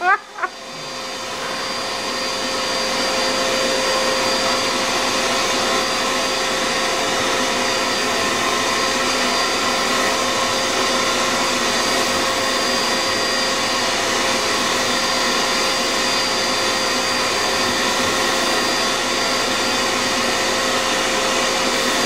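Vacuum cleaner running on its lowest setting, its hose nozzle drawn through a long-haired cat's fur: a steady drone with a high whine, building up over the first couple of seconds and then holding level.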